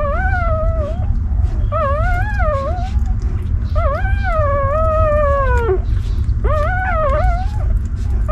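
Newborn puppy crying: four wavering, whining cries, the longest about two seconds and falling in pitch at its end, over a steady low rumble.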